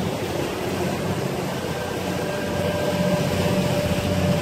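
Suzuki 300 outboard motor running steadily, a dense low engine hum with a thin steady whine joining about two seconds in.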